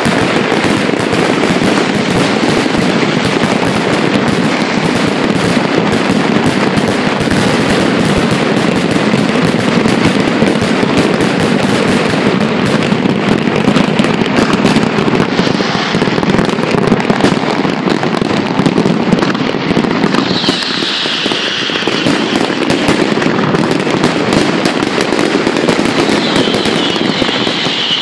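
A large fireworks display: many aerial shells bursting and crackling in a dense, unbroken barrage, easing slightly for a moment a little after two-thirds of the way through.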